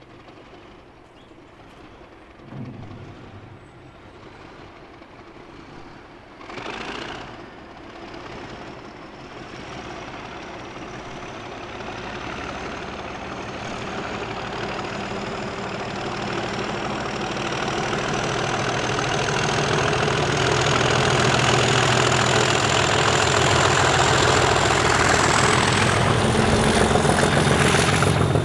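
Class 37 diesel locomotives hauling a train towards the listener under power, with the deep engine sound and a thin turbocharger whistle growing steadily louder. The whistle climbs slowly in pitch as the train nears.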